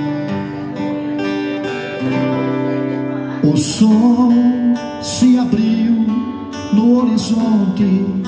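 Three acoustic guitars and an electric bass playing the instrumental intro of a gospel song, with held chords at first. About three and a half seconds in, the playing gets louder, with a wavering melody line over the strumming.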